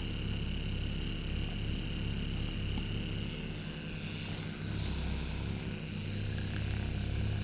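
Electric vibration massage device with a heated head, running steadily with a buzzing hum as it works on the muscles. Its tone shifts slightly about halfway through.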